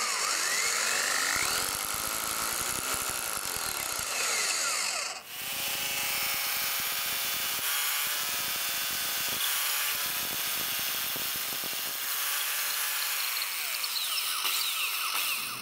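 JCB corded hammer drill with an 8 mm masonry bit boring through a timber post into a concrete block wall, running steadily. It stops briefly about five seconds in, then drills on until near the end.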